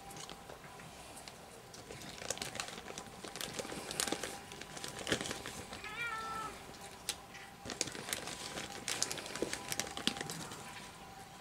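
Cats eating dry kibble off a concrete step: scattered crunching clicks, with one short meow about six seconds in.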